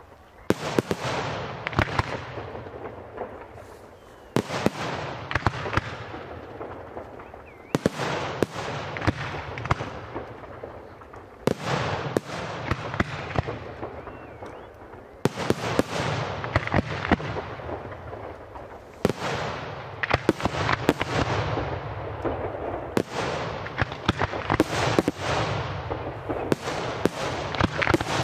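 Aerial firework shells bursting in volleys about every four seconds. Each volley opens with sharp reports and trails off into a run of crackling pops.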